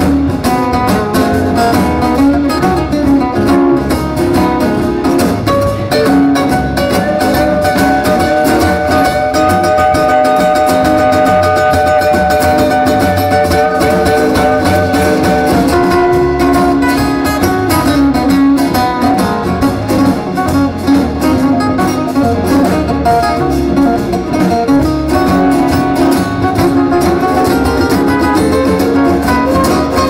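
Live band playing an instrumental passage of a song: two acoustic guitars strumming with the band behind them, and a run of long held notes in the middle of the passage.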